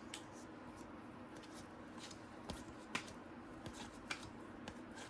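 Faint handling of a trading-card pack and its cards: soft rustling with a few scattered sharp ticks and clicks as the pack is opened and the cards are pulled out.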